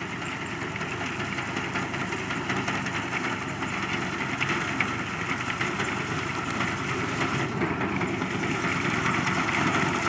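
Combine harvester running steadily, growing gradually louder.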